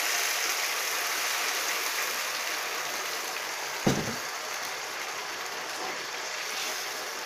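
Water poured into a hot frying pan of oily masala and fish, the pan sizzling and bubbling steadily and easing slowly. A short knock comes about four seconds in, and the curry is stirred with a spatula near the end.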